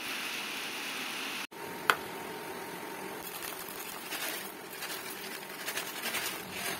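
Dry muesli poured into a plastic bowl, a light pattering rattle of flakes and raisins landing that builds over the last few seconds. A single sharp click comes about two seconds in, after a steady hiss at the start.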